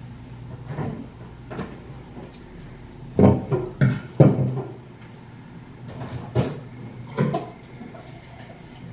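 A series of separate knocks and clatters from things handled in a kitchen, like cupboard doors and objects set down on a counter. The loudest come in a quick group of three a little past three seconds in, with a steady low hum underneath.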